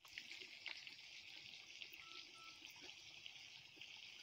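Faint, steady sizzle with small crackles: battered fish deep-frying in a wok of hot oil.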